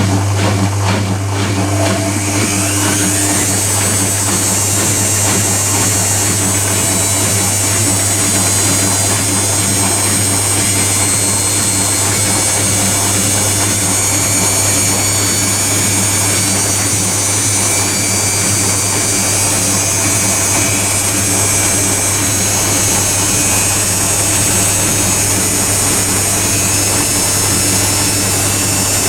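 A washing machine and a tumble dryer running together: a steady low hum, with a rhythmic pulsing for the first two seconds. A motor whine rises about two seconds in and then holds steady and high.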